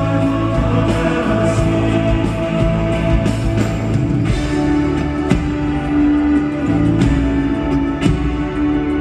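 Live rock band music with drums and long held notes.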